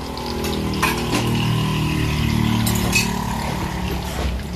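Oil and sauce bubbling in a wok of river fish with eggplant and green chilies. Beneath it runs a low motor hum that grows louder.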